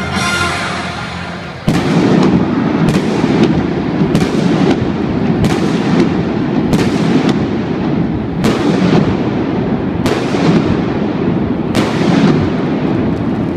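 Indoor victory fireworks going off under a domed stadium roof, a string of sharp bangs about every half second over a continuous echoing din. The bangs begin suddenly about a second and a half in, after a stretch of fading music.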